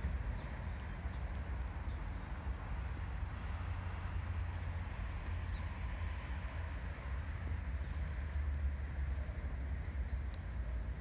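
Steady low rumble of outdoor background noise, with a few faint high chirps now and then.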